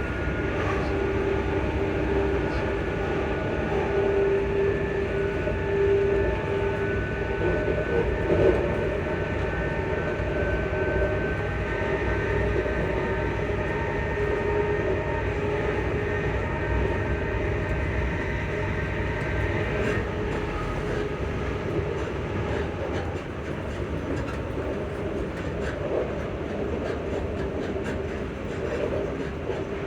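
Class 334 electric multiple unit running along the line, heard on board: the traction motors give a whine of several steady tones over the rumble of wheels on track. The higher tones stop about two-thirds of the way through.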